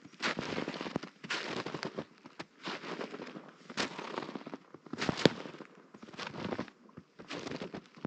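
Footsteps crunching in thin snow over dry leaves and twigs, roughly one step a second, with sharp cracks within some steps.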